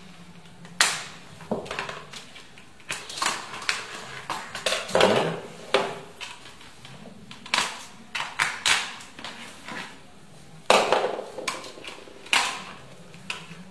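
Ties holding plastic toy lightsaber parts in a cardboard box tray being cut with a box cutter: scattered sharp clicks, snaps and knocks of the blade, the parts and the cardboard, a second or two apart.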